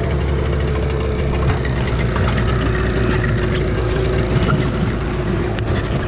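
Small outboard motor on an inflatable boat running steadily, its pitch easing slightly lower over a few seconds.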